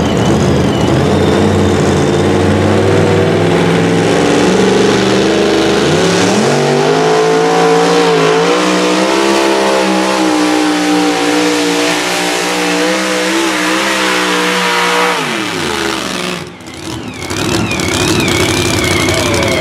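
Supercharged engine of a two-wheel-drive pulling truck at full throttle on a pull. Its pitch climbs steadily for several seconds and holds high, then falls away and cuts off abruptly near the end, and a lower, quieter engine note runs on after.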